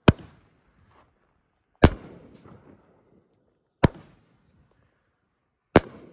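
Dominator Pro Level firework cake firing shot by shot: four sharp bangs about two seconds apart, each trailing off in a short rumble.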